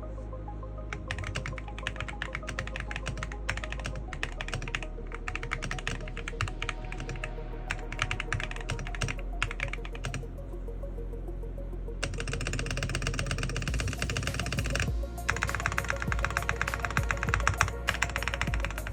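Typing on a gasket-mounted aluminium GravaStar Mercury K1 Pro keyboard with Kailh Speedy Mint linear switches and double-shot PBT keycaps: a rapid run of key clacks that gets faster and brighter about twelve seconds in. Background music plays underneath.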